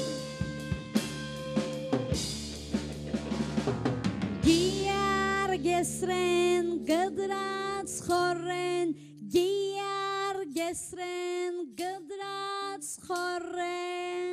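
Live band music: drum kit with keyboard and electric guitar, busy and percussive for the first few seconds. Then a woman sings long held notes over the band.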